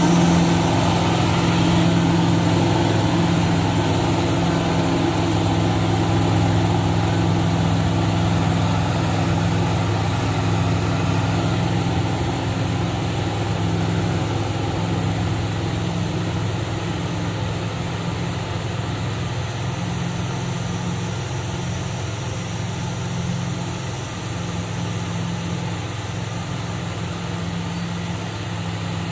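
Heavy diesel engine running steadily with a deep, even hum, slowly fading over the stretch.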